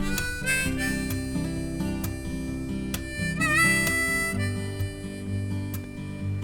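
Background music: a harmonica playing a bluesy line with a bent, wavering note about halfway through, over acoustic guitar.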